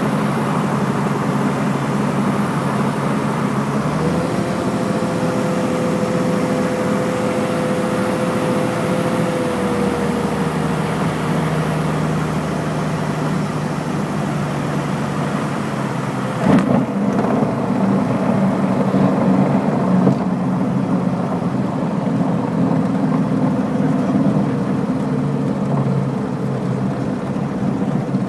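Light aircraft's piston engine and propeller droning steadily, heard inside the cabin. About four seconds in a thin steady tone joins it and fades away around ten seconds, as the engine note shifts; a click about sixteen seconds in is followed by less hiss.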